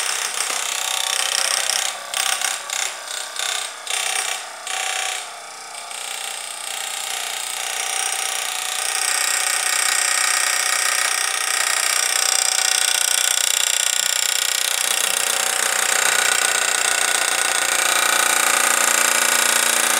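Small battery-powered DC motor of a homemade plastic-bottle boat whirring with a high whine. It cuts in and out several times a couple of seconds in, then runs steadily.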